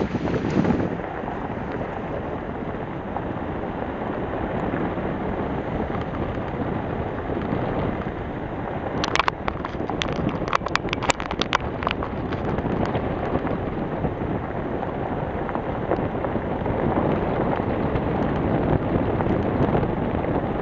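Vehicle driving along a gravel road: steady tyre and road noise mixed with wind buffeting the microphone. A quick run of sharp clicks comes about nine to twelve seconds in.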